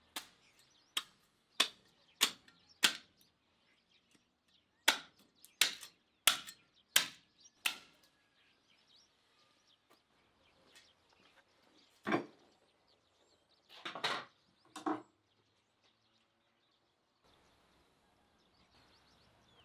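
Sharp slaps of a gloved hand on a raw beef leg, in two runs of about five slaps each, a little over half a second apart. A few duller, heavier thuds follow later.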